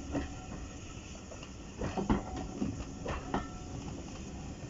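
Passenger coaches rolling slowly past with a low rumble, their bogie wheels clicking over rail joints in close pairs, twice.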